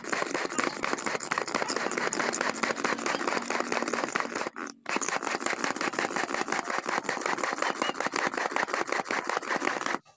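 Hand-pressed manual food chopper being pumped fast: a rapid, steady clatter from the plunger mechanism and spinning blades as they chop a nearly smooth, watery chili spice paste. The clatter breaks off briefly a little before the middle.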